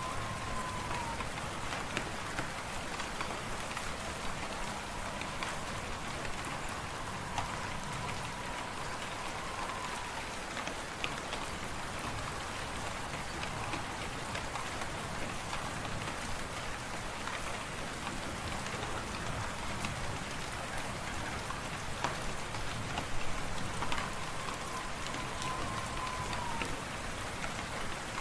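Fireplace fire crackling with scattered sharp pops over a steady storm hiss. A faint high whistle comes and goes a few times.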